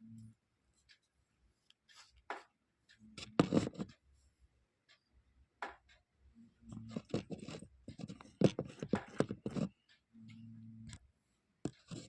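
Close-up handling noises: a run of clicks, taps and scrapes, thickest about seven to nine seconds in, with a low steady hum that comes and goes in short stretches.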